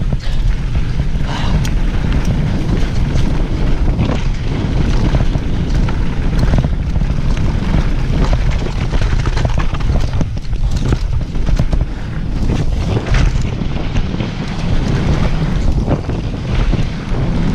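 Wind rushing over the camera microphone on a fast downhill mountain-bike descent, with the bike rattling and knocking over rough trail as it goes.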